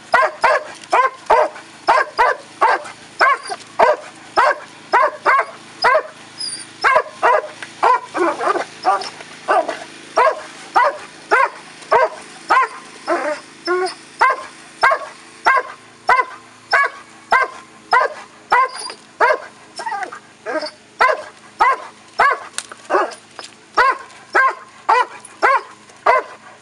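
Dobermann barking steadily at a helper during protection training, about two barks a second without a break.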